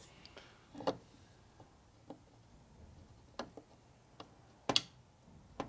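Scattered light metallic clicks and taps of gears and shaft in a 1942 Harley-Davidson 45 transmission case, as the shaft is turned and pushed to find its spline. About seven ticks with gaps between them; the sharpest one comes a little before the end.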